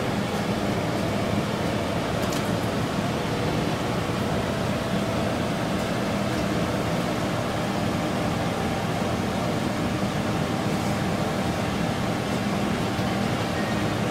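Minneapolis Blower Door Model 3 fan running steadily at about 1,290 cfm, depressurizing the house to about −47 Pa during the test. It is an even, unbroken rush of air with a low hum.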